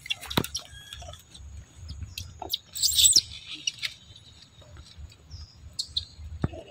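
High-pitched animal chirps and squeaks come and go, with the loudest a short cluster of bending chirps about three seconds in. Scattered small clicks and rustling of grass and dry leaves run underneath.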